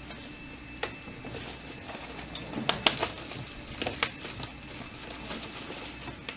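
Plastic packing material rustling and crinkling as it is handled and pulled by hand, with a few sharp clicks and knocks, the loudest about three and four seconds in.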